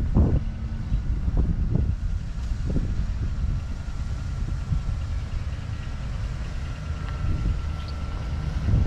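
Wind buffeting the microphone: a steady low rumble with irregular gusty thumps, strongest in the first three seconds.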